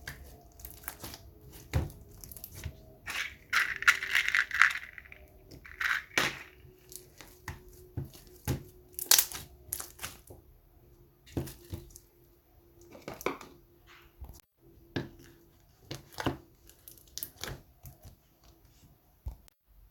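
Slime with toppings mixed in, handled and squeezed, giving irregular sharp clicks and pops. A louder, longer crackling squish comes about four seconds in.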